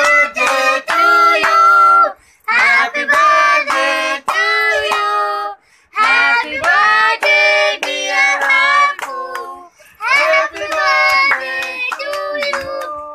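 A high-pitched singing voice, sung in four phrases of two to three seconds each with short breaks between them.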